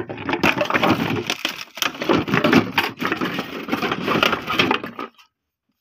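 Empty plastic drink bottles crackling and crinkling as hands push and shove them about, a dense run of sharp crackles that cuts off about five seconds in.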